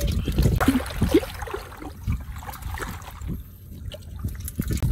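Irregular splashing and trickling of muddy water as fish are shaken from a dripping woven net scoop into a pot, with people wading in shallow floodwater. The splashing is busier in the first couple of seconds, then quieter.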